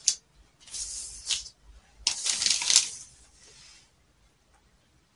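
Rustling of brown pattern paper as hands smooth a tape measure along it and mark it, in three noisy rustles, the last and loudest lasting about two seconds, then quiet for the last second.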